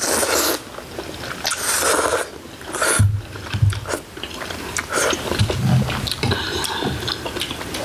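Close-miked eating of bulgogi hotpot with wide glass noodles: a few short slurps in the first two seconds, then wet chewing with soft low thumps.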